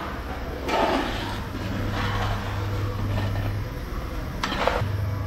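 A ladle scrapes twice through a large pot of tamarind-and-jaggery curry as it is stirred, once about a second in and once near the end, over a steady low hum.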